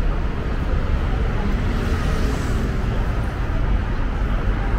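Steady city street traffic noise: a continuous low rumble of cars on the road.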